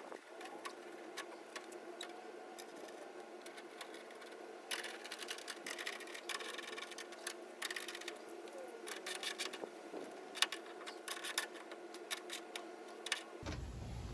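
Ratchet wrench clicking in short runs, with scattered light metal taps, as a panel is bolted in, over a faint steady hum. Near the end the background changes to a low rumble.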